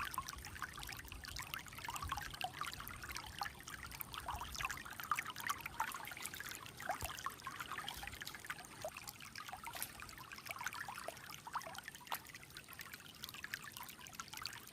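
Shallow mountain stream trickling and babbling over stones, a steady patter of small splashes, with a couple of faint clicks.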